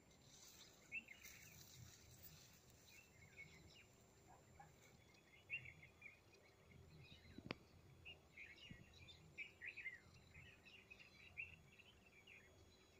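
Faint birds chirping on and off over quiet outdoor ambience, busier in the second half, with one sharp click just past the middle.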